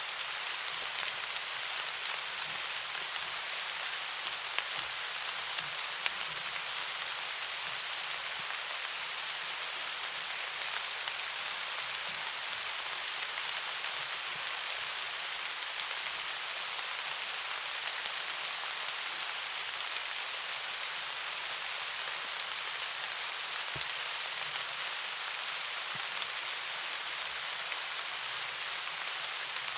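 Steady rain falling, an even hiss with a few scattered ticks of single drops.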